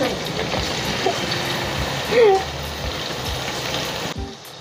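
Marinated chicken pieces deep-frying in hot coconut oil in a wide aluminium uruli: a steady sizzle that cuts off sharply about four seconds in.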